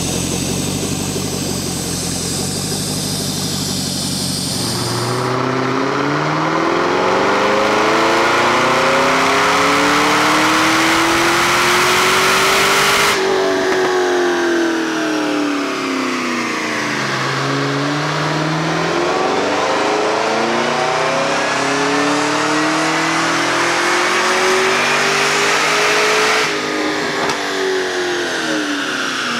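Cadillac CTS-V's supercharged 6.2 L V8, breathing through a Corsa axle-back exhaust, making wide-open dyno pulls. It runs steadily, then revs up through its range for about eight seconds and cuts off sharply. It winds down and revs up again for about nine seconds before cutting off near the end.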